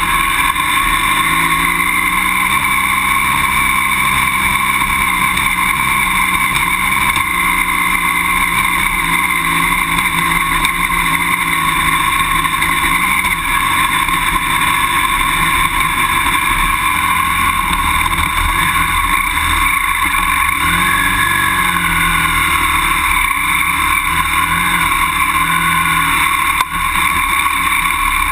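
BMW F800GS parallel-twin engine pulling the motorcycle slowly up a steep grass-and-gravel trail. The engine note rises and falls with the throttle.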